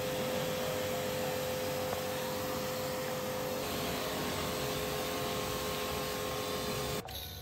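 Kärcher pressure washer running, its water jet hissing hard against the tyre, wheel arch and alloy wheel over a steady motor hum. The sound cuts off suddenly near the end.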